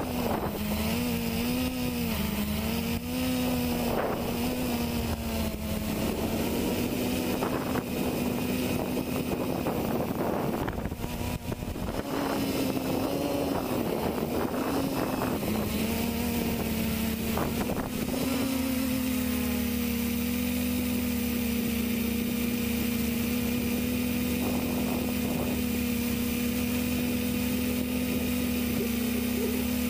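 Quadcopter's four brushless 1100kv motors spinning 10x5-inch propellers, heard from the onboard camera: a steady buzzing hum whose pitch wavers with throttle corrections, dips briefly near the middle, then holds steady from a little past halfway. Wind rushes over the microphone.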